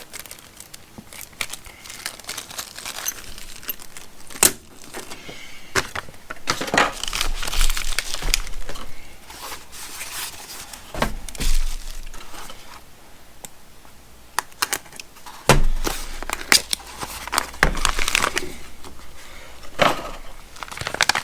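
Thick plastic zip-top bags crinkling and rustling as they are handled, with sharp clicks and clinks of small plastic and metal camera mounts and parts being set down and sorted.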